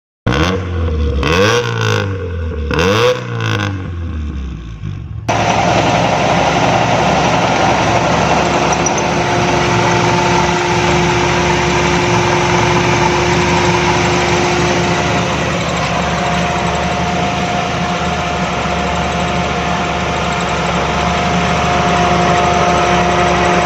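A carbureted car engine revved twice, pitch rising and falling with each blip. After a cut about five seconds in, it runs steadily with an even hum.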